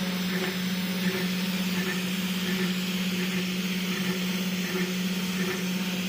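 Steady electric motor hum from a DIY CNC router running, one constant low tone with faint soft ticks repeating about every three-quarters of a second.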